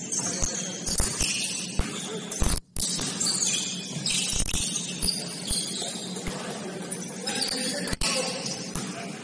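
Indoor basketball court noise: irregular thuds of a ball bouncing on the floor over a steady low hum, with bright, jangly high-pitched clatter. The sound cuts out briefly about three seconds in.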